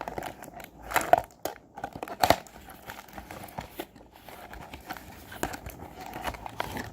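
Packaging crinkling and crackling as it is handled and opened by hand, in irregular bursts. There are louder crackles about a second in and just past two seconds.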